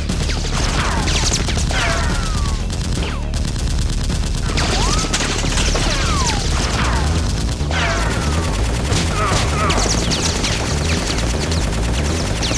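Action-film gunfire sound effects: a continuous, rapid volley of shots with whistling sweeps falling in pitch again and again.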